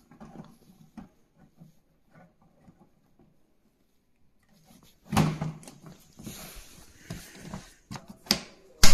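Hands handling a stack of plastic storage bins: faint light taps at first, then about five seconds in a dull knock and scraping of plastic, followed by a few sharp plastic clicks, the loudest right at the end.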